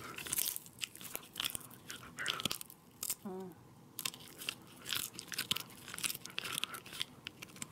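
A dog chewing and biting on a piece of beef tongue held in a person's fingers, with irregular wet crunches.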